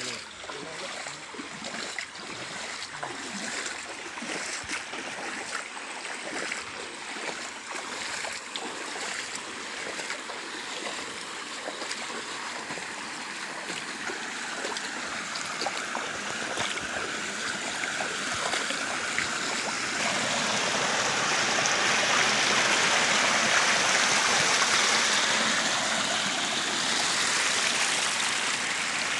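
Creek water rushing and splashing over a low sandbag dam, a steady wash of water that grows louder past the middle and is loudest in the last third.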